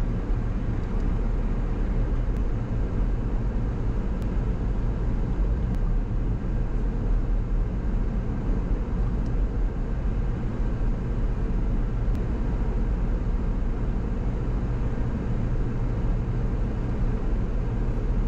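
Steady low rumble of a vehicle driving along a road: engine and tyre noise, even throughout.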